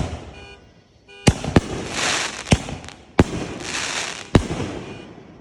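Fireworks going off: five sharp bangs at uneven intervals, with a crackling hiss filling the gaps between them.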